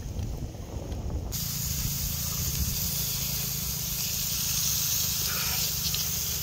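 Pork slices sizzling on the hot dome of a mukratha grill pan over a charcoal stove: a steady hiss that starts suddenly about a second in, with a low rumble underneath.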